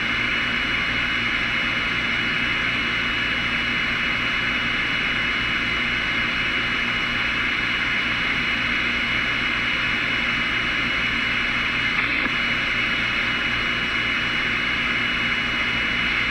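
Steady static hiss from a CB radio receiver with the squelch open between transmissions, with a faint steady high whine riding on it. There is a brief click about twelve seconds in.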